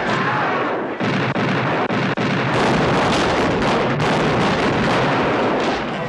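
Sailing-warship cannon fire: a dense, loud din of cannon shots and shot strikes, with several sharp separate bangs standing out.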